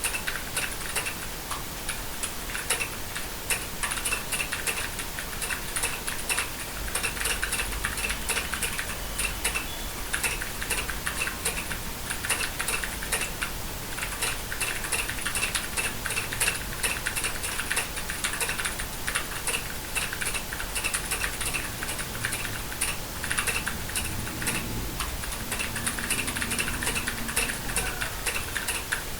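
Continuous typing on a computer keyboard: a dense, unbroken run of key clicks.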